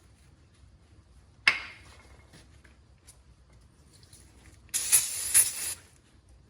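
Aerosol brake cleaner spraying onto a brake rotor for about a second near the end, in two quick pulses, washing off the rotor's factory oil coating. A single sharp knock sounds earlier.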